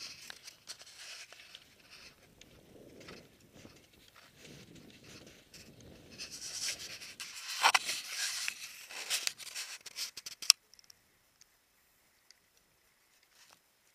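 Rubbing and scraping against a Contour HD action camera, with scattered clicks, as it is handled and moved on the climber's gear; it grows loudest in the middle and stops abruptly with a sharp click about ten and a half seconds in, then near silence.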